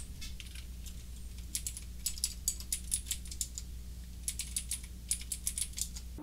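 Computer keyboard being typed on, in two short runs of quick key clicks about a second apart, as a command is entered at the Windows command prompt. A faint steady low hum sits underneath.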